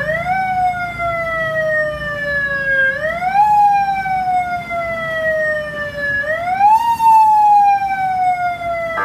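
Electronic vehicle siren from a siren box and speaker sounding a repeating wail: the pitch sweeps up quickly, then falls slowly, about every three seconds, three times over.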